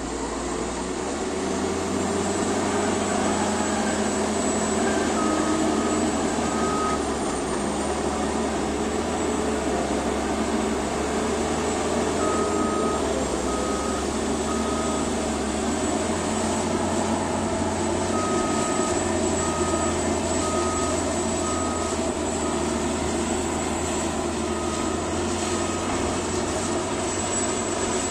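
Caterpillar D8T bulldozer's C15 diesel engine running steadily under work, with a faint high whine over it. Its reversing alarm beeps in short runs of three or four beeps, four times, the sign that the dozer is in reverse.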